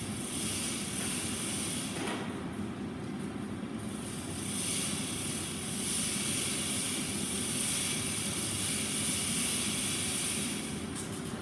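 Steady mechanical running noise: a continuous low rumble with a constant high hiss, and a faint click about two seconds in.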